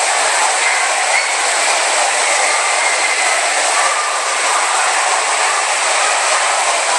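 Steady, loud wash of splashing water from spray fountains and pools in a large indoor water-park hall, mixed with the indistinct chatter and shouts of a crowd of swimmers.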